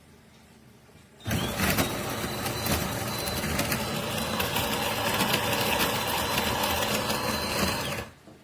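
De'Longhi Rivelia's built-in grinder grinding coffee beans at the start of a brew cycle: a loud, steady whirring motor with fine crackling that starts about a second in and cuts off about seven seconds later.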